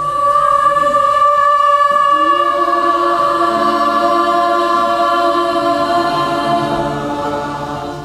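School choir singing a long held chord in several voice parts, a lower part coming in about two seconds in, the sound fading near the end.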